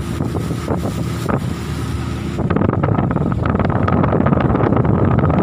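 Fast boat under way: its engine droning and water rushing past, with wind buffeting the microphone. The wind noise gets louder and rougher about two and a half seconds in.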